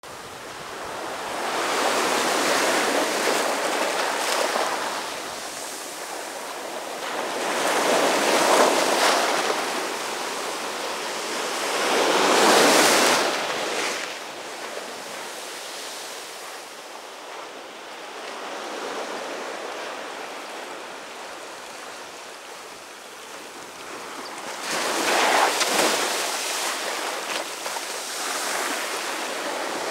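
Sea surf breaking and washing up a sandy beach around boulders, a rushing wash that surges every few seconds. The surges ease into a quieter lull in the middle before another strong wave breaks near the end.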